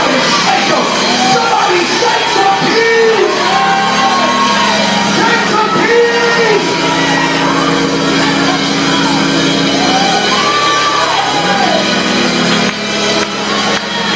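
Loud praise music in a church hall, with voices singing and shouting over sustained held chords.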